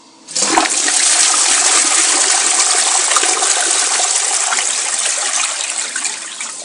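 Armitage Shanks Sandringham toilet flushing: a sudden loud rush of water starts a moment in, then runs steadily, easing slightly near the end.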